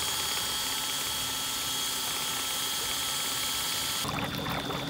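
Cordless drill on its high-speed setting spinning a drill-paddle propeller in the water, a steady high whine. About four seconds in the whine changes and water churning and splashing comes in.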